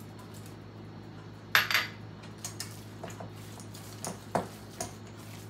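Metal spoon clinking and scraping against a stainless steel mixing bowl while stirring chicken salad: a loud cluster of clinks about one and a half seconds in, then scattered lighter clinks.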